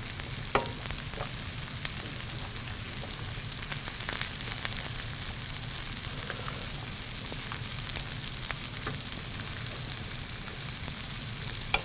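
Sliced mushrooms sautéing in olive oil in a sauté pan over high heat, a steady sizzle with fine crackling, browning as they cook. A few light clicks sound over it.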